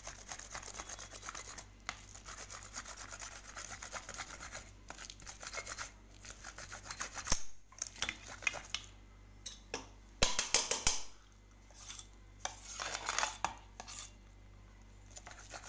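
Boiled chana dal being pressed and rubbed through a perforated steel sieve with the back of a steel bowl: metal scraping on metal in quick repeated strokes, with a few louder clattering scrapes about halfway through and again near the end.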